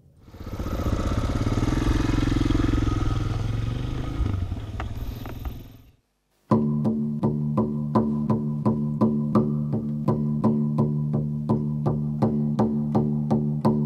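A motorcycle engine running for about six seconds, swelling in the middle, then fading and cutting off. After a brief gap, music with plucked strings and a steady, even beat takes over.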